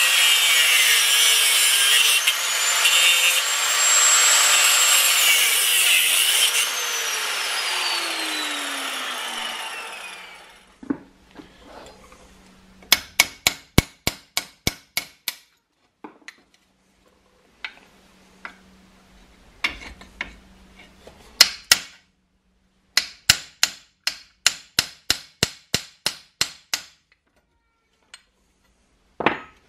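Angle grinder cutting into steel rivets on a cleaver handle, its motor running loud for about six seconds, then winding down with a falling whine. After that a ball-peen hammer strikes a steel punch in runs of quick blows, about four a second with short pauses between runs, driving the old rivets out of the handle.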